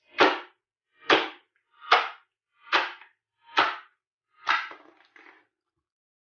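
Clear crystal slime being played with by hand: six sharp smacks about one a second, the last trailing off into two fainter ones.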